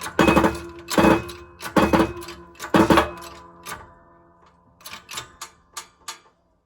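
Hammer striking steel to drive a new wheel hub into its wheel bearing: four heavy blows about a second apart, each leaving the metal ringing, then a run of lighter, quicker taps.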